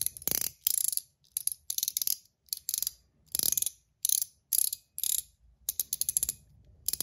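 Gao Studios Chiz mechanical spinner ring turned by hand, its spring-loaded glass balls clicking over the dense detent track. Over a dozen short runs of rapid ratcheting clicks, with brief pauses between.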